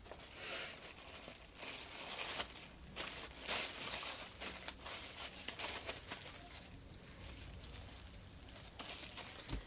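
Irregular rustling and crinkling of makeup packaging being handled. It is busiest in the first few seconds and softer after that.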